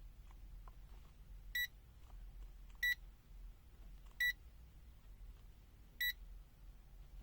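Four short, high electronic beeps from a digital multimeter, unevenly spaced, like the key-press beep as its function buttons are pressed.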